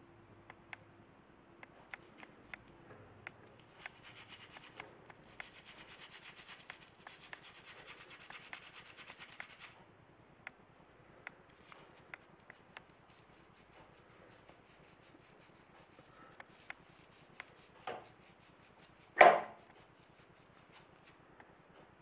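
Bristle brush scrubbing a small wet part of a service fuse connection block in quick back-and-forth strokes, in two long spells with a short pause between them. A single sharp knock comes near the end.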